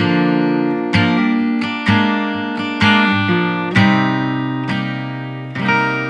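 Acoustic guitar music: a series of strummed chords, each struck sharply and left to ring out.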